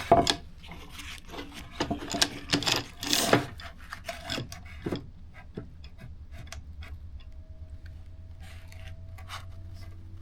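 Wooden board being flipped and slid into place, scraping and knocking for the first few seconds, then only scattered light clicks.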